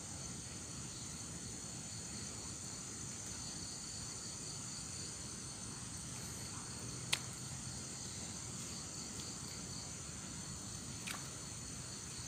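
Steady high-pitched insect chorus, several unbroken tones at once, over a low steady background noise. One sharp click about seven seconds in and a fainter one near the end.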